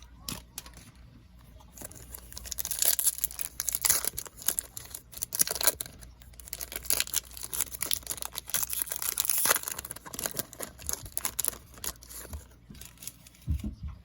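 Foil trading-card pack wrapper being torn open and crinkled by hand, a dense crackling rustle, with the cards handled and shuffled afterwards.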